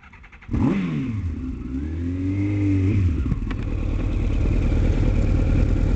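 Motorcycle engine coming in loud about half a second in, revving up and down in pitch for a couple of seconds, then running at a steady pitch as the bike rides on.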